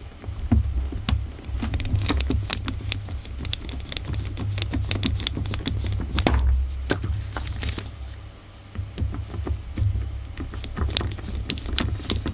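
Screwdriver working the small screws of a Walbro carburettor's pump cover: many small metallic clicks and scrapes as the bit seats and turns, over a low rumble from handling.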